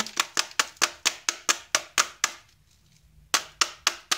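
Saeco Royal coffee grinder unit knocked repeatedly to shake out old coffee grounds: sharp plastic knocks about four or five a second, stopping for about a second midway.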